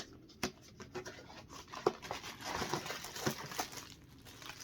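Phone-mount product box being opened and its packaging handled: scattered sharp clicks and taps, with a stretch of rustling packaging in the middle.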